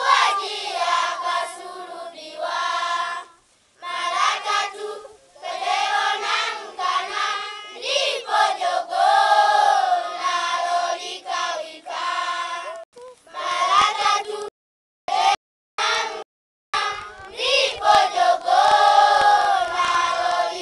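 A group of children singing a welcome song together, in phrases with short pauses. The sound drops out to silence twice, briefly, about two thirds of the way in.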